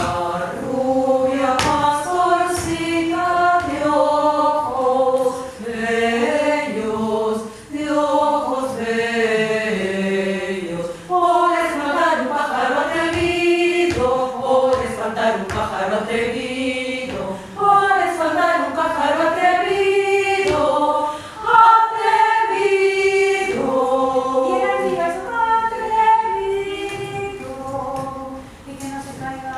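Women's choir singing in several parts at once, in sung phrases with short breaks between them.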